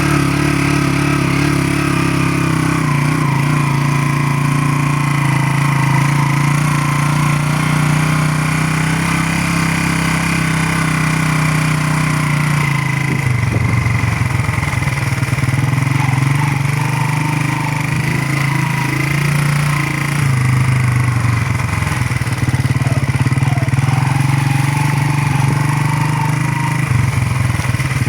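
Motorcycle engine running steadily as the bike is ridden. Its note shifts with the throttle about halfway through, again about two-thirds in, and near the end.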